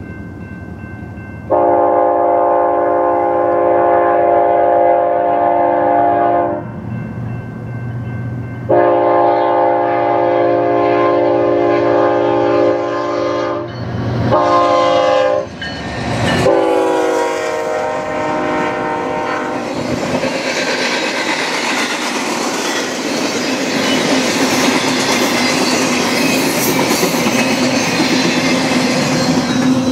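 BNSF freight diesel locomotives sounding a multi-chime air horn as they approach: two long blasts, then shorter ones, then a final blast whose pitch drops as the locomotives pass. After that comes the steady, loud noise of the double-stack container cars rolling by on the rails.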